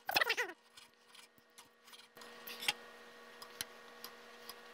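Chef's knife cutting raw beef on a wooden cutting board, then metal tongs picking the pieces up, giving a few light taps and clicks on the board. A short vocal murmur at the very start is the loudest sound.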